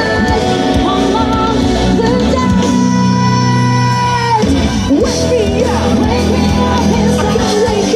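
Pop-rock song with a lead vocal over accompaniment; about halfway through, the singer holds one long note, then the voice slides back up into the melody.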